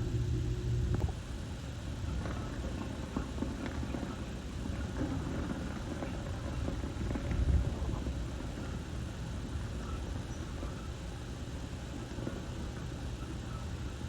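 Strong wind buffeting the microphone, a gusting rumble. A steady low hum stops about a second in.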